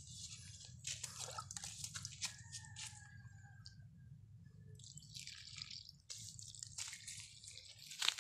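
Coconut milk poured from a steel cup into bamboo tubes packed with rice, trickling and dripping in several short pours.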